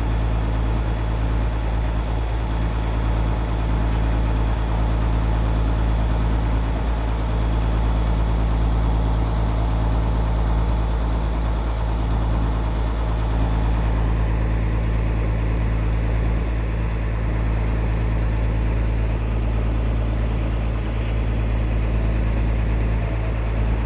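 A boat's engine running at a steady pace, a constant low hum.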